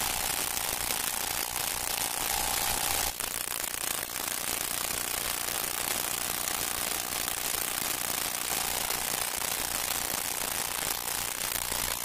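Steady dense crackle and hiss of old-recording surface noise, with no clear music or speech, and a faint steady tone that comes and goes.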